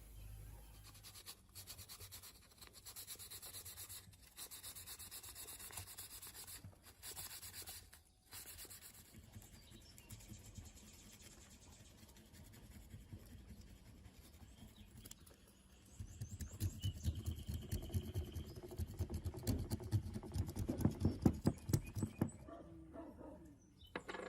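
Hand-worked scraping and rubbing on a part, with a few abrupt breaks. About two-thirds of the way in it turns into quick, louder strokes, several a second.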